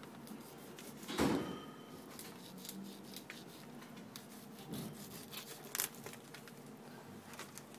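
Kitchen knife cutting through raw albacore tuna on a cardboard-covered board as the stomach-cavity section is sliced away from the main body of meat: faint rubbing and scraping strokes with scattered small clicks, and a louder stroke about a second in.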